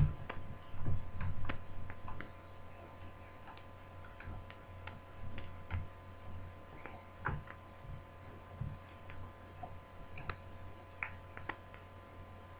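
Irregular light clicks and taps from small hand tools and plastic laptop parts being worked on during disassembly, with a few louder knocks in the first couple of seconds, over a steady low electrical hum.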